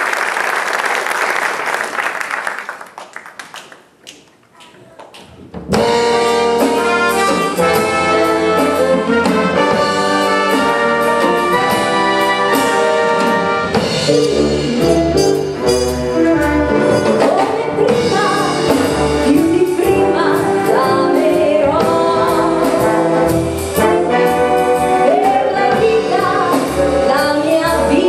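Audience applause dies away, then after a short lull a brass band with saxophones, drum kit, keyboard and guitar comes in all at once, about six seconds in, playing a jazzy song arrangement. A woman's singing voice joins over the band in the later part.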